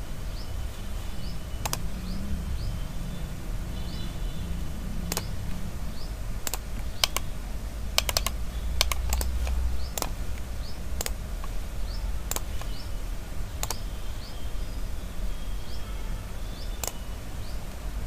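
Sharp clicks of a computer mouse and keyboard at irregular intervals, about twenty in all, over a low steady hum.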